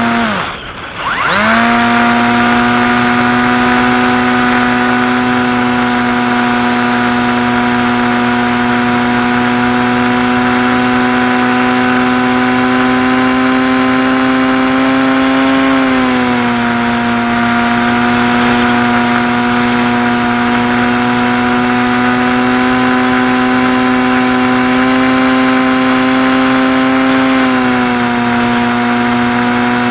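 Electric motor and propeller of a Skywalker RC plane running under throttle: a steady buzzing whine. Near the start the pitch drops sharply as the throttle is pulled back, then climbs back within about a second. The pitch steps down a little about halfway through, and rises and falls again near the end.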